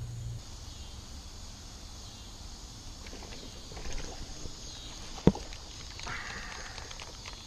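Crickets chirring steadily while a baitcasting reel is handled during a topwater frog retrieve, with one sharp knock about five seconds in.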